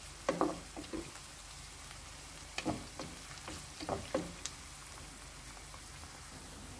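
Chopped onions and green peppers sizzling in oil in a nonstick pot, stirred with a wooden spoon. Three short bouts of the spoon scraping and knocking against the pan come in the first four seconds, and after that only the sizzle remains.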